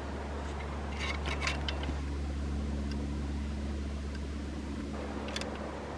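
Light clicks and taps of an aluminium Yagi antenna element being fitted into its mount on the boom, a cluster about a second in and one more near the end, over a steady low hum.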